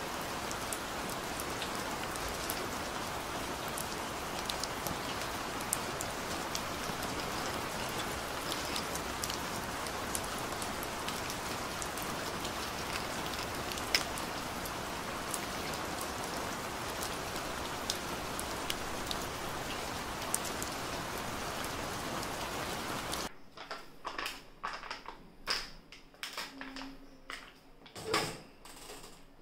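Steady rain falling on a hard surface, with scattered single drips ticking. About 23 s in it cuts to a quiet room with a few clicks and knocks of a hand at a microwave oven's door, the loudest near the end.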